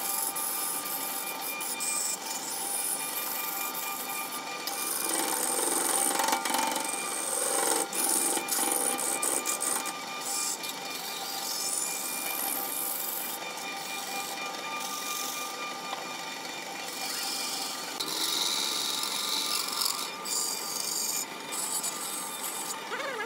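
Wood lathe spinning a wooden spindle while a turning tool cuts into it: the steady hum of the machine under the hissing scrape of shavings being cut away, the cutting noise swelling and easing as the tool works.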